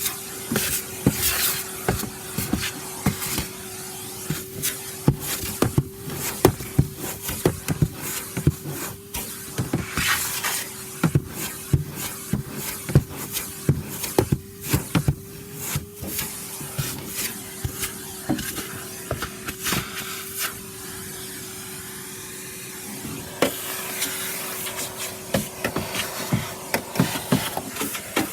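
Vacuum cleaner running with a steady whine, with frequent clicks and rattles as grit and debris are sucked into the nozzle.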